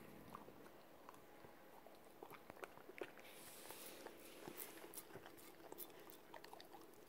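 Faint wet clicks and smacks of a corgi licking a plate and chewing crumbs and cornbread.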